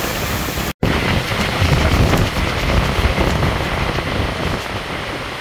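Heavy rain pouring down in strong, gusting wind, with wind buffeting the microphone as a low rumble. The sound drops out for a split second just under a second in.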